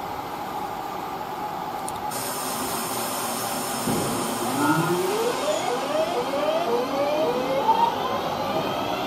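Electric train pulling away, its traction motors whining in a series of short rising tones that step higher and higher from about halfway through, over a steady hum and hiss.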